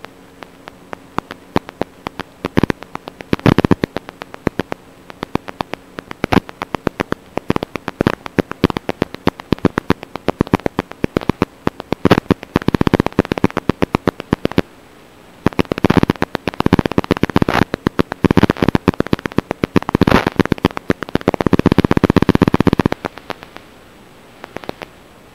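Radio static from an analog FPV video link: steady hiss broken by irregular sharp crackles and pops that come in dense clusters, a sign of interference and a weakening signal. A faint steady hum sits under it early on.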